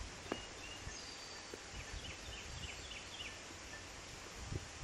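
A bird calls a quick run of about six short, high, falling chirps, over a steady hiss of outdoor background noise. A sharp click comes just after the start and a duller knock near the end.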